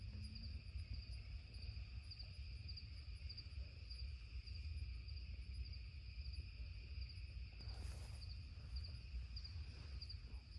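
Crickets chirping in a steady night chorus: a high pulsing trill over a lower continuous buzz. A brief rustle about eight seconds in.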